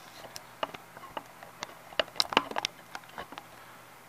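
Irregular light clicks and taps of small hard objects being handled, loudest in a cluster about two seconds in.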